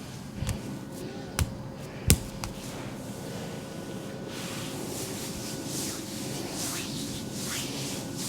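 Three sharp clicks or taps in the first couple of seconds, the last the loudest, then hands rubbing over oiled skin in repeated strokes of a back massage.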